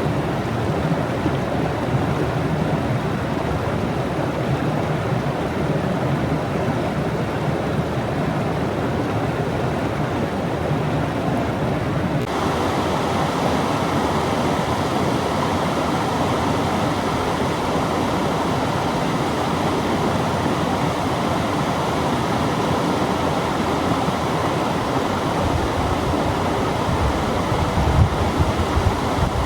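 Waterfall, a steady rush of falling water. About twelve seconds in it changes abruptly to a brighter, hissier rush, and near the end a low rumble joins it.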